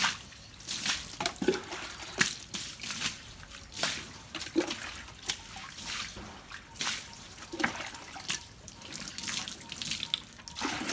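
Water poured from a plastic dipper over a wet dog, splashing and dripping onto wooden decking in a string of irregular pours.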